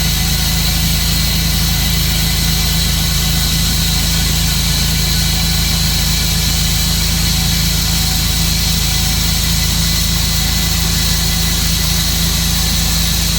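Tru-Cut sawmill's engine running steadily at an unchanging speed.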